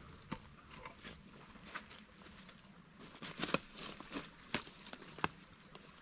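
Footsteps on dry leaf litter and twigs: a scattered series of sharp snaps and clicks, thickest a little past halfway.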